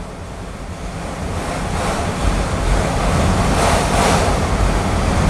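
Autorack freight cars rolling past at speed: a steady rushing roar of steel wheels on rail with a deep rumble underneath, growing louder over the first couple of seconds and then holding.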